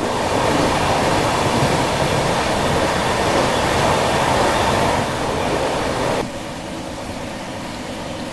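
Passenger train running through a tunnel: a loud, dense rush of running noise that drops suddenly about six seconds in as the train comes out into the open.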